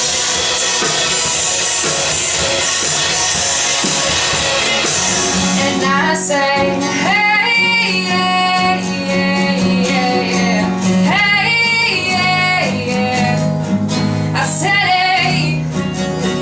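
Live recital music: a bright, hissy wash for about the first five seconds, then a female voice singing over guitar with a steady low bass note underneath.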